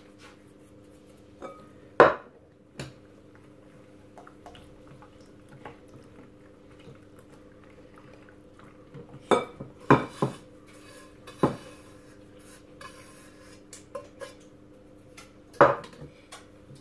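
A whisk stirring a semolina batter in a glass mixing bowl, with a few sharp clinks and knocks of the whisk and a frying pan against the bowl, the loudest about two seconds in and a cluster around ten seconds in. A steady low hum runs underneath.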